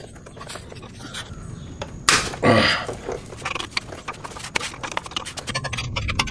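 A metal wrench working the 19 mm starter mounting bolts, making a string of small metallic clicks and scrapes that come thicker near the end. About two seconds in there is one sudden, loud rush of noise.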